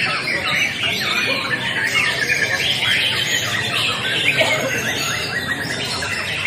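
Many caged white-rumped shamas (murai batu) singing at once in a song-contest round: a dense, unbroken chorus of overlapping whistled phrases and rapid trills.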